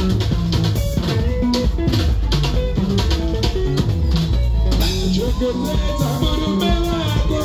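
Live Zimbabwean sungura band playing an instrumental passage: electric bass, electric guitars and drum kit in a steady, driving beat.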